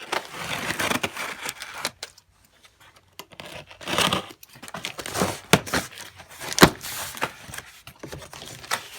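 Cardboard box and packing material being opened and handled, crinkling and tearing in uneven stretches, with a few sharp knocks, the sharpest about two thirds of the way through.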